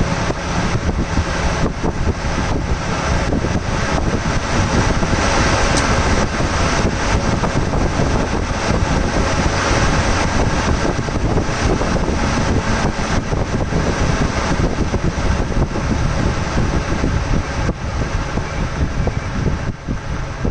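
Chevrolet Volt brushless electric radiator cooling fans running on a PWM signal, giving a steady rush of air. The fans speed up and the rush grows louder toward the middle as the duty cycle is lowered, then eases off near the end as it is raised, because higher duty means slower speed on these fans.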